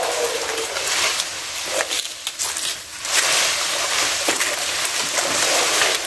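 Footsteps crunching and rustling through a thick layer of dry fallen leaves, with a few sharper crackles of twigs underfoot; the rustling eases briefly about two seconds in, then picks up again.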